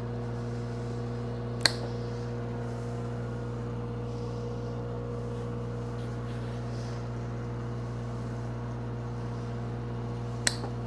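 Engine-driven welding machine running steadily at high idle, a constant hum, with two sharp clicks, one about a second and a half in and one near the end.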